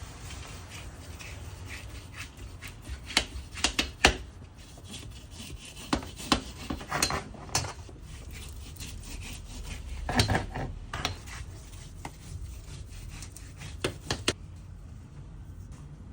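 Scraping and rubbing in short irregular bursts, with a few sharp knocks, in four clusters.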